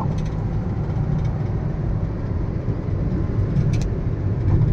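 Steady low rumble of road and engine noise inside a moving car's cabin at cruising speed.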